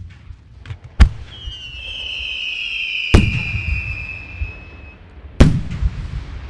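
Display fireworks going off: three sharp shell bursts, about a second in, at about three seconds and at about five and a half seconds, each followed by a low rumbling echo. A long high whistle runs over about four seconds from just after the first bang, falling slightly in pitch.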